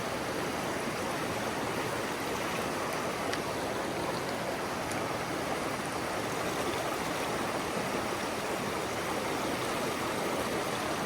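Steady rush of a mountain stream's water flowing over rocks.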